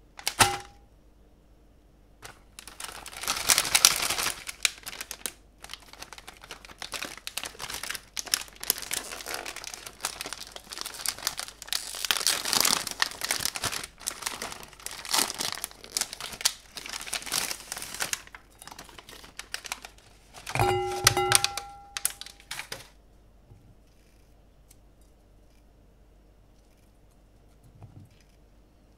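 A plastic cookie wrapper and cardboard box crinkling and tearing as the packet is opened, in irregular crackling spells for about fifteen seconds. About twenty-one seconds in, the cookies are tipped into a bowl with a short clatter and a brief ringing from the bowl, then it goes mostly quiet.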